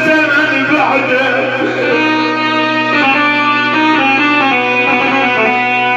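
Instrumental music from a live band: a melody that glides at first, then moves in held notes from step to step over a steady low drone.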